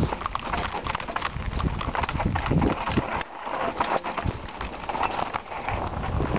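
Mountain bike ridden fast down a rough, stony trail: a dense, irregular rattle and knocking of the bike and tyres over rocks and gravel, over a low rumble.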